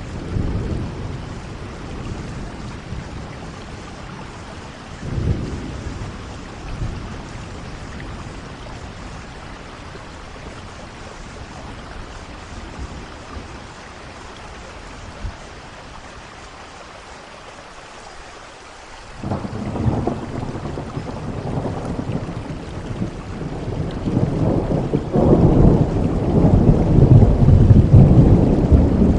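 Steady rain falling, with rolls of thunder: short low rumbles in the first few seconds, then about two-thirds of the way in a long rumble starts up and grows louder toward the end.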